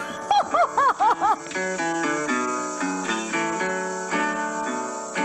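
Short burst of laughter, a quick run of ha-ha syllables, then background music of plucked acoustic guitar takes over from about a second and a half in.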